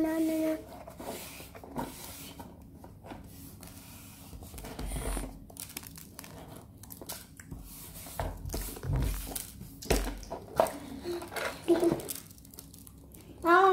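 Handling noise close to the microphone: scattered clicks, rustles and a few dull knocks as a plastic plate is held and moved about, with a brief child's hum at the very start.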